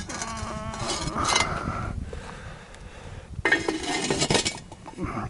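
Metal Dutch oven lid clanking and scraping as it is handled and set down on the pot, with a louder clatter about three and a half seconds in as it seats.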